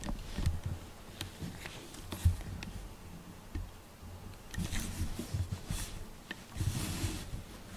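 Soft rustling and low bumps of handling close to the microphone beside a cat, with two longer rustles, one just past the middle and one near the end.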